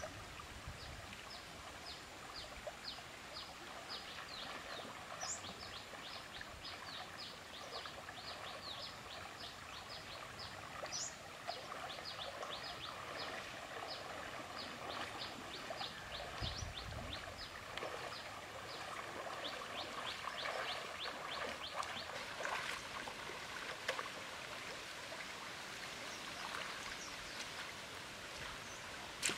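Shallow river water running over stones, with a long series of short, high chirps from a small animal, each falling in pitch, repeating about twice a second. In the later part come splashing steps of someone wading through the shallows.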